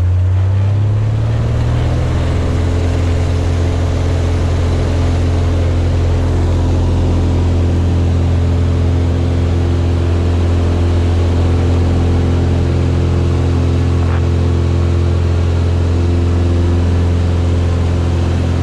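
Cessna 182's six-cylinder piston engine and propeller running, heard from inside the cabin: the engine speeds up slightly in the first two seconds, then holds a steady drone.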